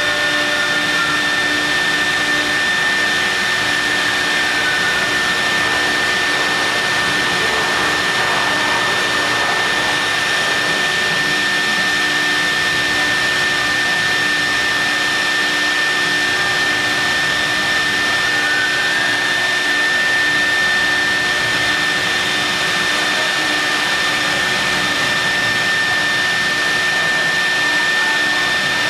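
CNC milling machine running steadily while machining marble: a constant high whine over an even rushing noise.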